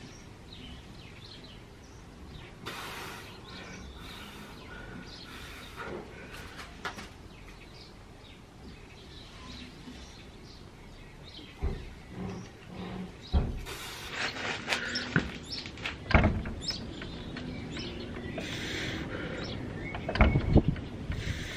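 Home cable pulley machine worked through single-arm lat pulldown reps: the cable whirs over the pulleys with each pull. Knocks and clanks of the weights come in about halfway through and grow louder toward the end.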